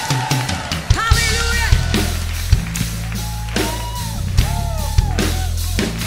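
Live rock band playing an upbeat instrumental passage: drum kit with a steady beat, bass guitar and electric guitars, with melodic lines over a heavy bass.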